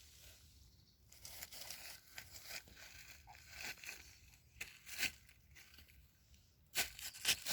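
Faint rustling and crackling of dry leaves and twigs on the forest floor, with a few sharper cracks near the end.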